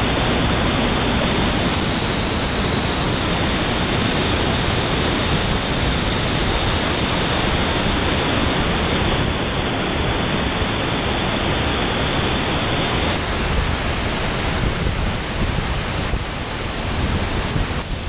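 Misol-Ha waterfall pouring, a loud, steady rush of falling water heard from right behind and under the cascade, with water splashing over the camera.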